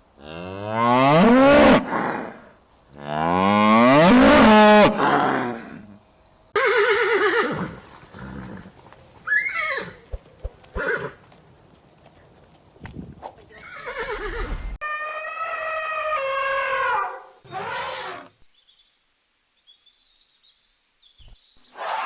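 A string of separate farm-animal calls with short gaps between them: two long, loud cattle moos in the first five seconds, then several shorter calls, and a long wavering call about fifteen seconds in.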